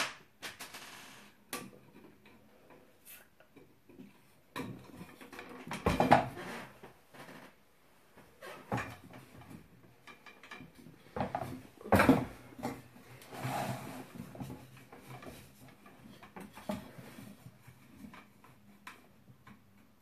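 Wooden parts of a clothes drying rack being handled and fitted: irregular knocks and clatters of wood on wood, loudest about six and twelve seconds in.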